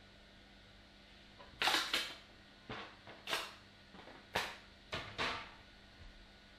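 A blue 3D-printed plastic part is worked off a flexible textured PEI steel build plate, giving about half a dozen sharp clacks and pops over a few seconds, the loudest a double crack near the start.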